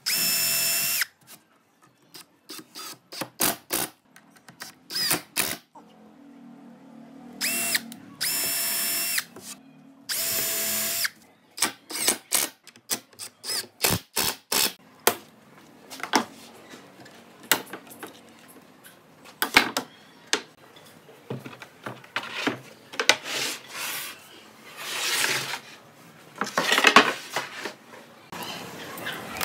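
Cordless drill with a countersink bit boring holes into a wooden tabletop, running in three short spurts with a steady whine. Between the runs and through the rest, short knocks and clunks of wood being handled and set down.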